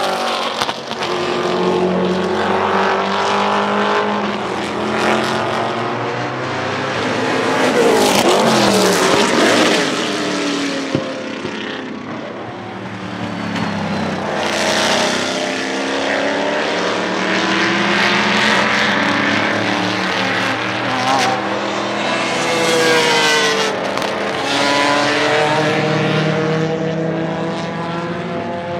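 Matech Ford GT GT1 race car's 5.3-litre Roush Yates V8 at racing speed, revving up through the gears with quick upshifts, several times over. About eight seconds in, it passes close by and its pitch falls as it goes past.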